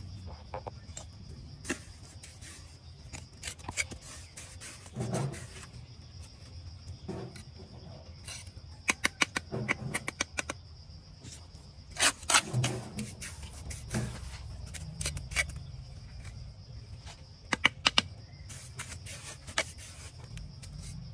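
Steel bricklaying trowel knocking and tapping on hollow clay bricks and scraping mortar, with a series of sharp clicks and several quick runs of taps as the bricks are set in the mortar bed.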